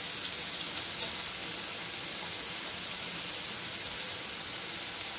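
Chopped onions, garlic and dried red chillies sizzling steadily in hot oil in an aluminium kadai, with a light click about a second in.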